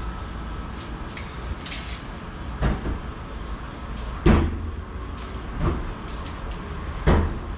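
A tape measure being handled against an aluminium hand truck's frame: four short knocks and clacks, the loudest about halfway through, over a steady low rumble.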